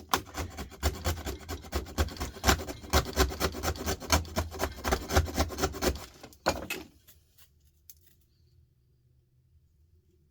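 Fast back-and-forth scraping on a circuit board, several strokes a second for about six seconds, then a final short scrape before it stops. The scraping tests whether the board's plating is gold or copper, and it turns out to be copper.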